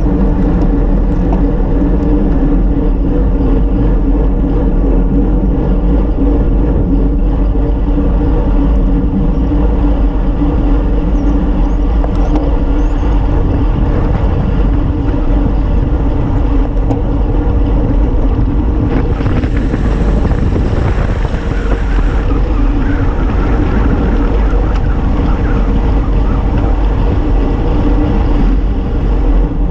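Wind rushing over the microphone of a handlebar-mounted camera on a road bike at speed, with the tyres humming on the asphalt; steady, with a brief louder hiss about two-thirds of the way through.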